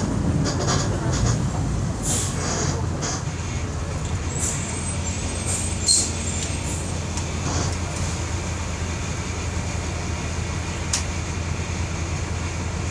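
Volkswagen 17.230 EOD bus with ZF gearbox running steadily at a constant engine note, heard from inside the bus, with scattered clicks and rattles from the body.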